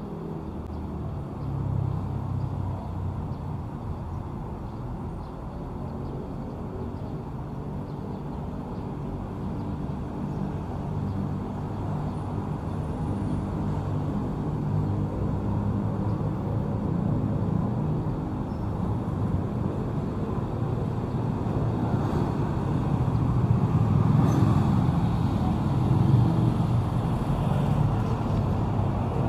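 Street traffic: the engines of passing vehicles running, growing louder toward the end.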